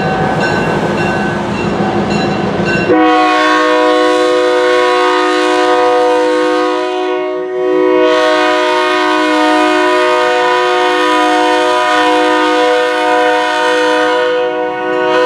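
Diesel locomotive's multi-chime air horn sounding for a street grade crossing. It is a long blast starting about three seconds in, a brief dip near the middle, then a second long blast that runs on. A low rumble comes before the horn.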